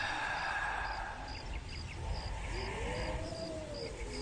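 Crickets chirping at a steady pace of about three chirps a second over a low rumble. About two and a half seconds in, a long call rises and then falls.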